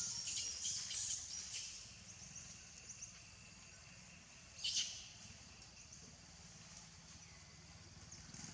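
High-pitched chirping calls, clustered in the first two seconds with a short, louder burst about halfway through, over a faint steady high-pitched background.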